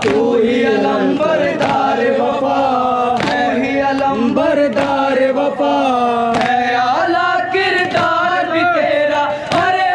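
A group of men chanting a noha, a Shia mourning lament, in unison through microphones. Sharp chest-beating (matam) strikes come about every second and a half and keep time.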